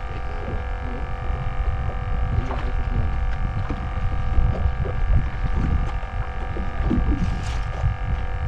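A steady hum holding several fixed tones, over an uneven low rumble, with a few faint clicks scattered through.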